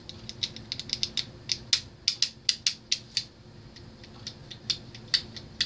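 Fidget Cube being fiddled with in the hand: an irregular run of sharp little plastic clicks, coming thickest in the middle.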